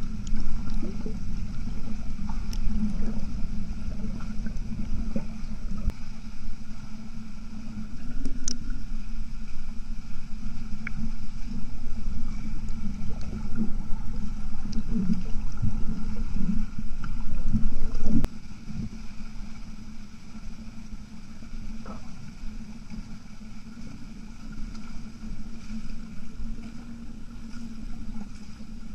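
Muffled underwater rumble and sloshing of a swimmer's arm strokes and kicks, heard through an underwater camera, with scattered faint clicks; it gets quieter about two-thirds of the way through.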